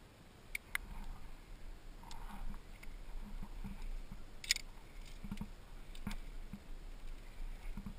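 Climbing hardware clinking: sharp scattered clicks of metal carabiners and quickdraws being handled and clipped on a harness. Between the clicks come low knocks and scuffs of the climber moving against the rock.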